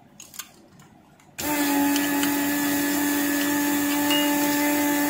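Weller WR3M station's vacuum pump switching on about a second and a half in and running steadily with a hum and air hiss, drawing suction through the DSX 80 desoldering gun, whose filter has just been replaced, to pull molten solder off a circuit board joint. A couple of small clicks come before it starts.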